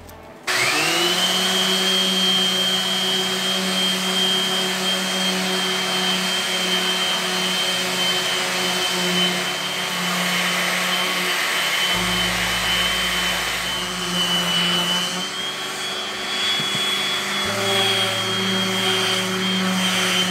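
Random orbit sander on a dust-extraction hose switching on about half a second in, its whine rising as it spins up, then running steadily while sanding a wooden cutting board's face with fresh 220-grit paper for the final pass.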